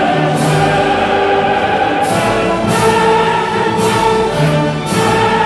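Orchestral film score with a choir singing long held notes, with bright swells recurring every second or so.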